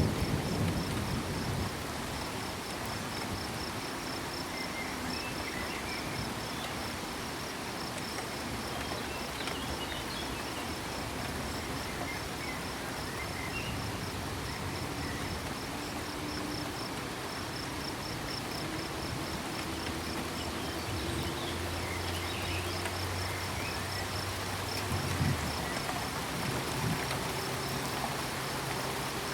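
Crickets chirping in a steady rapid pulse over the even hiss of rain, with low frog calls now and then. The tail of a thunder rumble fades in the first second.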